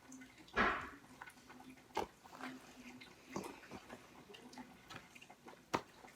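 Light handling sounds of small objects: a short soft rustle about half a second in, then a few scattered light taps and clicks, over a faint low hum.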